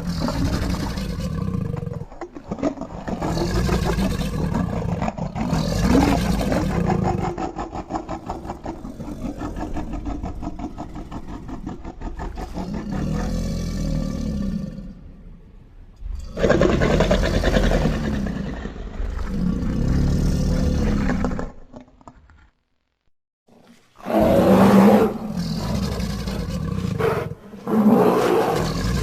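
Deep, rough creature roars and growls in a long series, a made-up sound effect for a crocodile-human hybrid monster. The calls break off into a brief silence about three-quarters of the way through, then start again.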